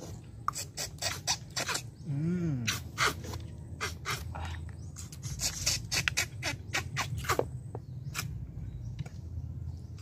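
Spoons scraping and clicking on plates as people eat rice and cooked horn snails, in many short irregular clicks. A brief rising-then-falling vocal sound comes about two seconds in.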